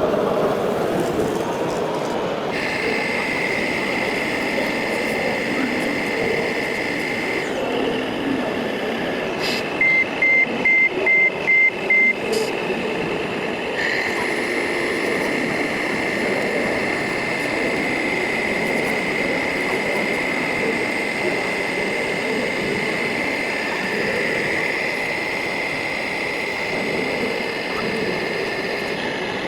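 Radio-controlled model trucks and construction machines running: a steady high electric motor and gearbox whine that changes pitch a few times, over a busy background murmur. About ten seconds in comes a run of six quick reversing beeps.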